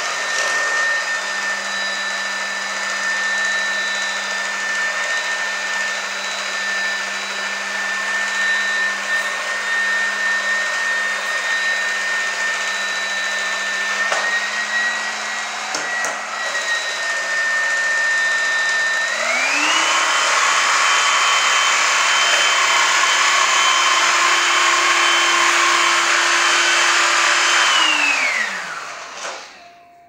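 Star-Light ASBC-2040WR cordless stick vacuum running steadily in its low power mode, a steady motor whine. About two-thirds of the way through the motor speeds up to a higher whine, then near the end it winds down and stops.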